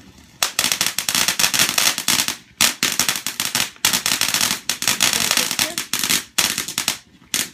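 A consumer firework going off with dense, rapid crackling and popping, starting about half a second in and coming in several runs separated by brief breaks before stopping abruptly at the end.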